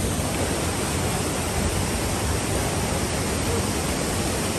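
Steady rush of running water, an even, unbroken noise.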